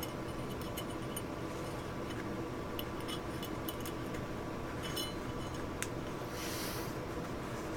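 Small Glock slide parts clicking and clinking as they are handled and fitted by hand: the extractor, extractor plunger and its spring going into the slide. The light clicks come in scattered groups, with one sharper click near six seconds, over a steady background hiss.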